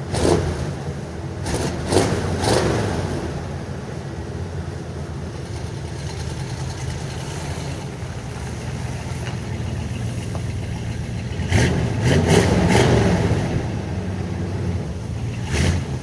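Chevrolet 350 small-block V8 running with no tailpipes, idling steadily between short revs: a few quick blips in the first three seconds, a longer burst of revving about twelve seconds in, and one more blip near the end.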